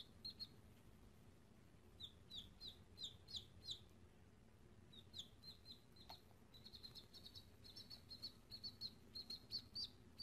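Baby chick peeping: faint, short, high peeps that slide down in pitch, coming in small clusters at first and then a quicker, near-continuous string over the last few seconds.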